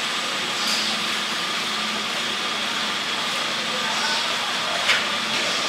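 Steady mechanical hum of street-side ambience with a constant high whine, faint voices under it, and a single click near the end.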